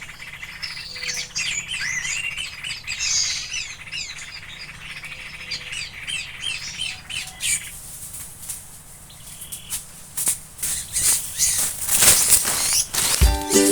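Small songbirds chirping and twittering in quick rising and falling notes. From about eight seconds in, a rapid run of sharp wing flaps and rustles takes over. Music starts right at the end.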